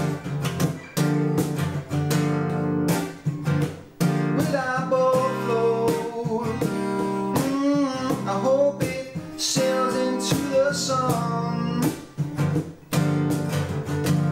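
A man singing a slow song to his own strummed acoustic guitar.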